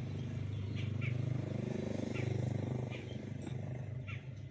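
A motor engine running steadily nearby, a low hum that grows a little louder in the middle and eases off in the last second or so.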